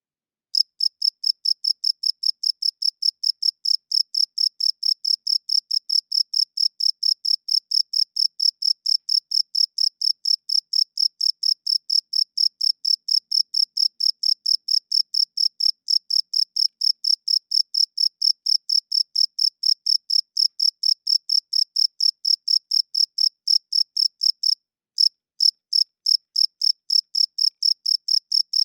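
Cricket chirping: a fast, even train of short, high-pitched chirps, about four a second. It starts about half a second in and pauses briefly near the end.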